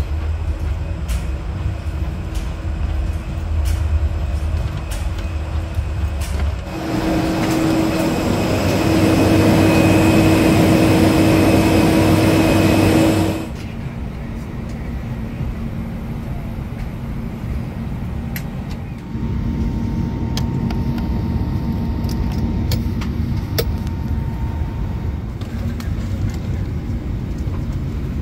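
Steady ventilation hum of a jet bridge and then an Airbus A321 cabin during boarding, with scattered light clicks. About a third of the way in a louder rushing noise with a steady drone lasts about six seconds, then cuts off sharply to a quieter cabin hum.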